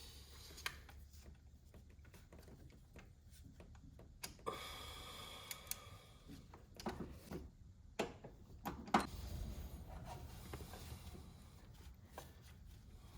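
Hand tools on spark plugs: a socket wrench ratcheting and scattered sharp metallic clicks as the plugs are tightened to torque, with the loudest clicks a little past the middle.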